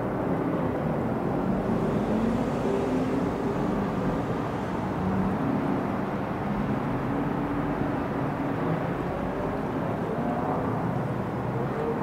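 Steady low engine drone with slowly wavering pitch.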